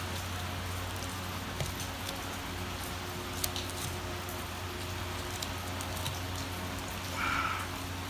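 Knife slicing a fillet away from the backbone of a large sweet lips fish, a quiet cutting sound with a few faint clicks against the bone, under a steady hiss and a low hum.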